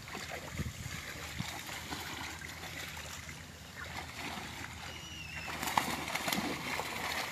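Faint splashing and sloshing of shallow, muddy pond water as people wade through it netting fish, with scattered small splashes and a busier stretch near the end. There is also a brief faint high chirp about five seconds in.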